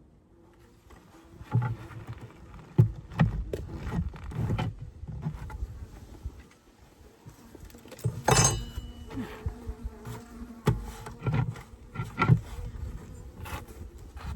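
Honeybees buzzing around an opened hive, a faint steady hum, with irregular knocks and bumps of the wooden hive frames being handled and moved.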